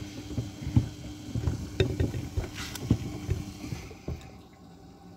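Old Samsung front-loading washing machine tumbling a load of sneakers in foamy water during the rinse: the shoes knock and thump irregularly against the drum with sloshing, over a steady motor hum that stops about a second before the end as the drum pauses.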